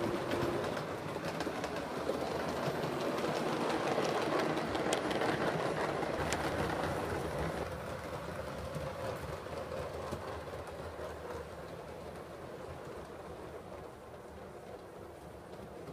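7mm-scale model train running along the layout's track, louder in the middle and fading away from about eight seconds in.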